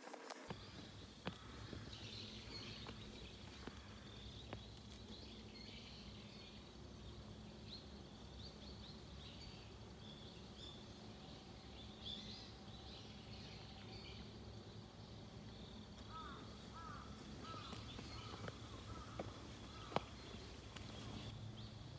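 Faint woodland ambience: small birds chirping high and irregularly throughout, with a quick run of about six short repeated call notes near the end, over a steady low hum. A few sharp clicks, the loudest a little before the end.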